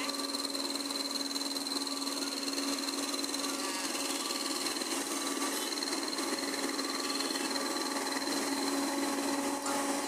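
Engines of asphalt-paving machines, including a Case road roller, running with a steady drone and a constant hum.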